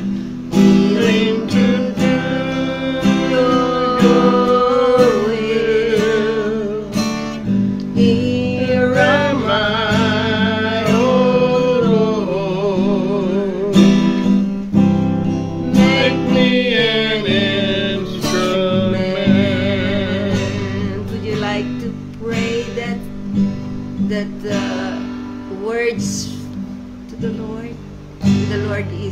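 A woman singing a slow worship song with vibrato, accompanying herself on a strummed acoustic guitar.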